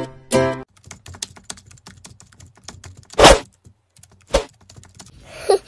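Plucked, ukulele-like intro music ends about half a second in, then a typing sound effect of rapid keyboard clicks runs for about two seconds. A loud short hit comes about three seconds in and a smaller one about a second later.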